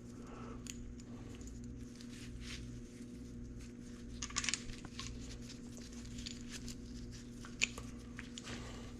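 Light clicks and small knocks of metal engine parts being handled as the kickstarter shaft assembly is picked up and fitted, with a cluster about four seconds in and a sharper click near the end, over a steady low hum.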